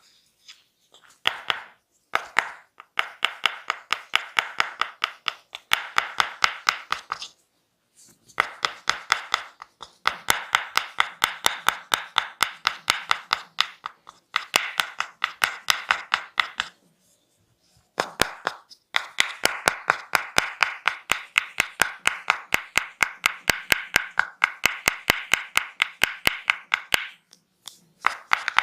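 A masseur's hands striking the body in rapid percussive massage strokes, about four sharp slaps a second in runs of several seconds with short breaks between.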